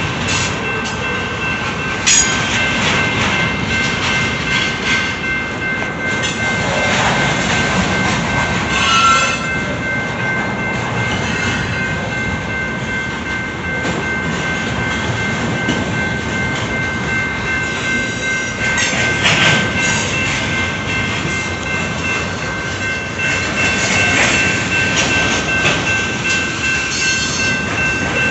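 Double-stack container train rolling past close by: a steady rumble of steel wheels on rail with clicks and knocks over the rail joints, and a steady high-pitched squeal running throughout.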